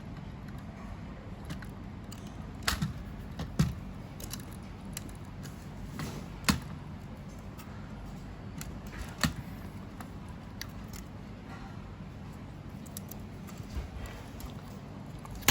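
Scattered light clicks and taps of small parts being handled while a cable is threaded through a fusion splicer's base, over a steady low hum.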